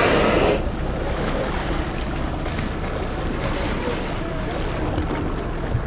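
Humpback whale blowing at the surface: a loud rush of exhaled breath that ends about half a second in. Then steady wind and water sloshing against the whale's back.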